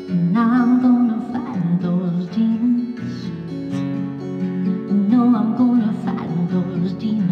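Acoustic guitar, capoed at the second fret, strummed steadily under a woman singing two wavering phrases, one just after the start and one about five seconds in.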